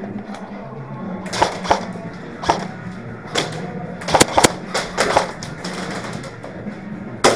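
Airsoft guns firing sharp single shots and short bursts, with a close cluster of several snaps about four to five seconds in and one more near the end, over music playing in the background.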